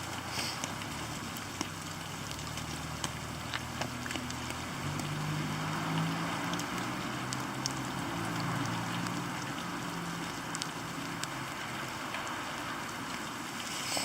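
Steady rain with scattered sharp drip ticks, over a low droning hum that shifts in pitch about halfway through.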